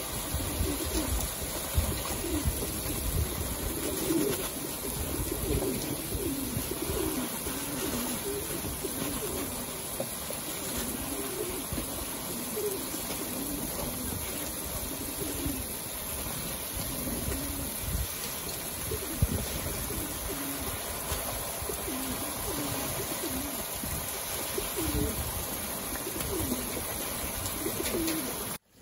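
Racing pigeons cooing again and again while a garden hose sprays water over them as they bathe, the spray making a steady hiss.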